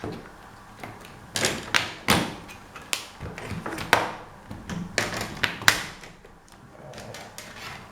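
Plastic screen bezel of a Lenovo IdeaPad laptop being pried off by hand, its retaining clips popping loose in a series of sharp clicks and snaps.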